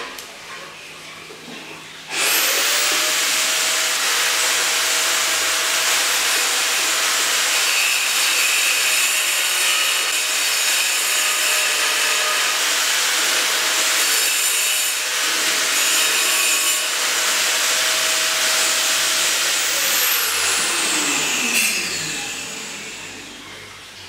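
An electric power tool's motor starts suddenly about two seconds in and runs with a steady whine and a loud rushing noise, then is switched off and winds down with a falling whine near the end.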